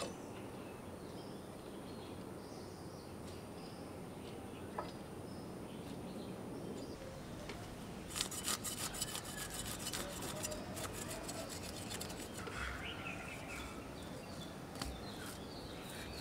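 Knife scraping and cutting fish on a wooden board: a fast run of rasping strokes for about three seconds midway. Birds chirp in the background.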